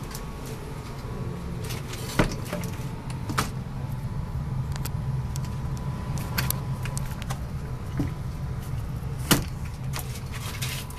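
Forced-air furnace running with a steady low hum, while the heat is on. Scattered light clicks and knocks of things being handled sound over it.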